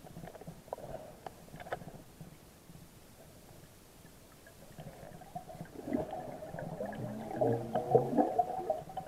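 Air bubbles burbling and gurgling, heard underwater: a few faint clicks first, then bubbling that builds about five and a half seconds in and is loudest near the end.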